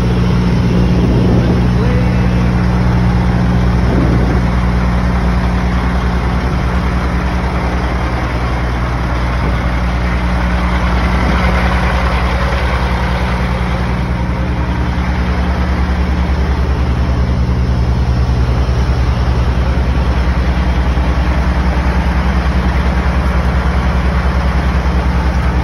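Peterbilt 379's diesel engine idling steadily, heard close to the truck.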